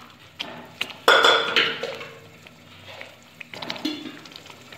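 A metal utensil knocks against the cooking pan about a second in and rings briefly, followed by a softer clatter near the end.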